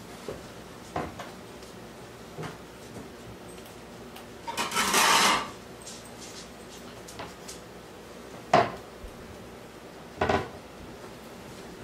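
Dishes and cutlery being handled on a kitchen counter: scattered clinks and knocks, a louder clatter lasting about a second around five seconds in, then two sharp knocks near the end.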